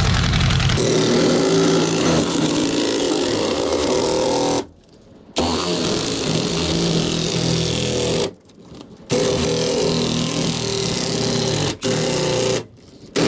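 Malco Turbo Shear attachment on a cordless drill cutting a circular hole through galvanized sheet-metal ductwork, running loud and steady with the motor and blades working through the metal. It runs in stretches, stopping briefly four times as the trigger is let off.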